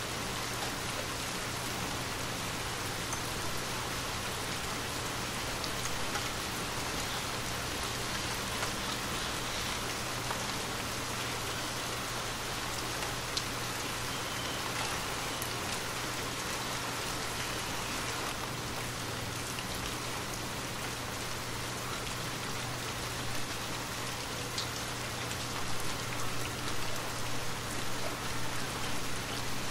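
Steady rain, a dense even hiss with scattered faint drop ticks over a low steady hum. In the last few seconds the level starts to swell and dip unevenly.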